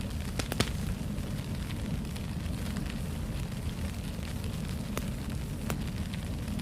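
Wood fire crackling in a fireplace: a steady low rumble of the flames with scattered sharp pops and snaps.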